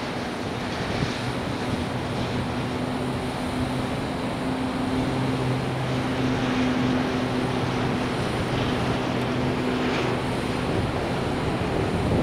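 Steady airport apron noise: a low engine hum over a wide rushing background, a little stronger in the middle, while a tug tows a Boeing 777.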